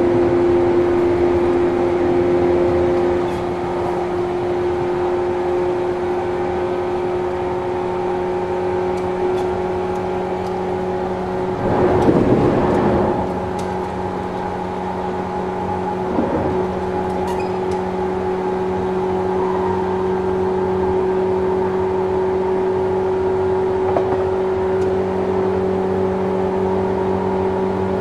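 Onboard running sound of a JNR 185 series electric train recorded at the gangway between cars: the MT54 traction motors hum at a steady pitch while the train runs at an even speed, over wheel and rail noise. About twelve seconds in a louder rush of noise swells for a second or two, and faint clicks from the gangway plates come now and then.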